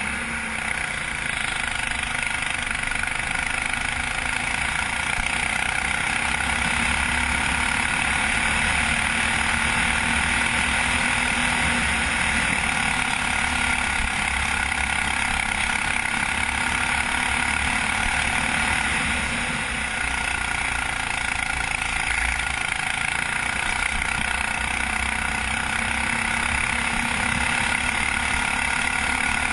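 Racing kart engine running hard at speed, heard from a camera mounted on the kart, with the sound easing briefly about two-thirds of the way through.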